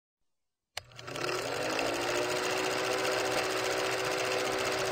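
Film projector sound effect over a countdown leader: a click about three quarters of a second in, then a fast, steady mechanical clatter with a hum that rises briefly in pitch as the motor comes up to speed.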